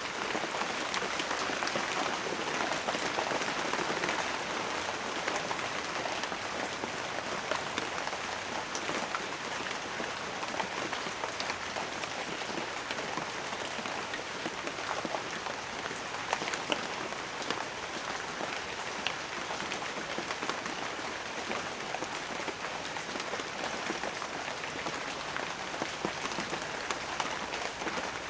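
Steady rain falling, a dense hiss of raindrops with many small individual drop ticks.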